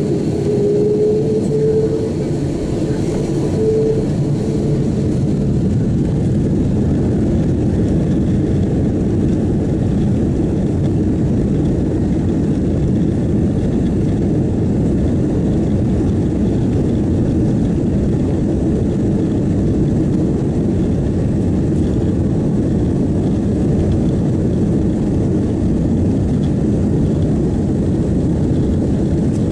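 Airbus A330-200 airliner's jet engines heard from inside the cabin as the aircraft moves on the ground: a whine rising in pitch over the first few seconds, then a steady engine drone with rumble.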